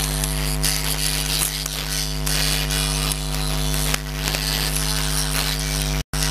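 Steady electrical mains hum and buzz from an open public-address microphone channel, over a high hiss. The sound cuts out for an instant near the end.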